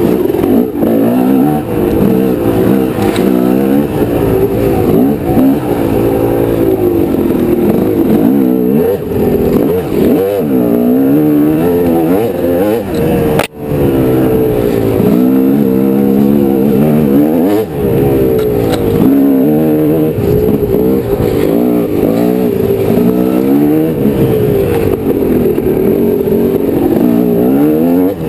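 Honda CR250 two-stroke single-cylinder dirt bike engine revving up and down continually as it is ridden along a trail, the pitch rising and falling with each twist of the throttle and change of gear. The sound drops out for an instant about halfway through.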